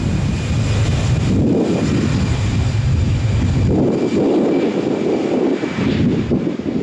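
Airbus A320's twin jet engines at takeoff thrust as the airliner accelerates down the runway: a steady loud rumble with a thin high whine over it.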